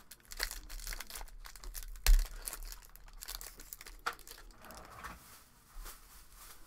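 Foil wrapper of a Topps baseball card pack crinkling and tearing as it is ripped open by hand and the cards are pulled out, with a sharp knock about two seconds in.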